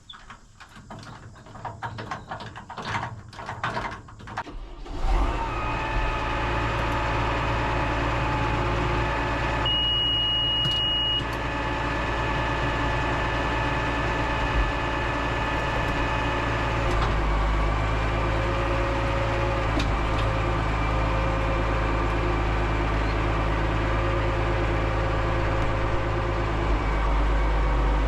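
A tractor engine running steadily, coming in about five seconds in after a few seconds of scattered clicks and knocks. A high steady beep sounds for about a second and a half around ten seconds in.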